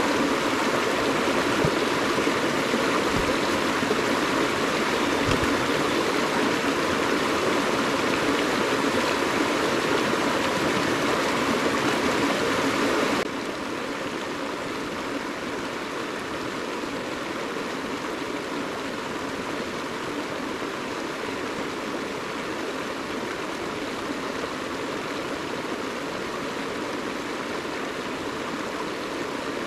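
Steady rushing of a flowing stream, with no distinct events; it drops abruptly in loudness about thirteen seconds in.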